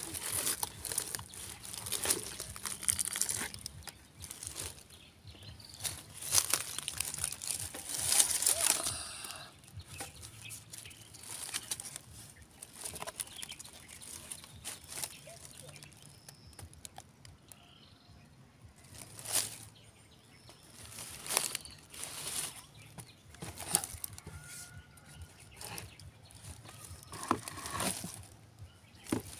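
Rustling and scraping as speaker cabinets are handled and shifted in dry leaves, in irregular bursts that are busiest in the first few seconds.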